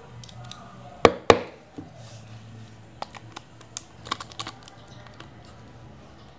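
Clicks and taps of plastic and metal parts being handled while a Marshall Willen II portable speaker is taken apart: two sharp, loud clicks about a second in, then a scatter of lighter clicks a couple of seconds later, over faint background music.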